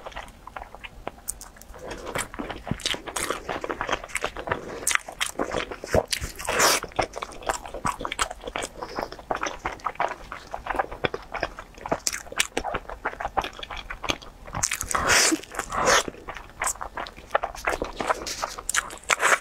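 Close-miked chewing and biting of a meat-filled sticky rice dumpling (zongzi): a dense run of irregular mouth clicks and crackles, louder about a third of the way in and again about three quarters through.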